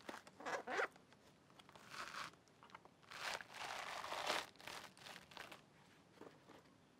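Green coconut husk being levered and torn off on a metal husking spike: a series of fibrous ripping and crunching sounds, the longest tear lasting over a second about three seconds in.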